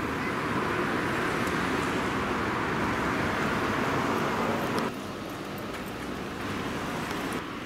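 Steady road traffic noise from passing cars, cutting off abruptly about five seconds in to a quieter outdoor background.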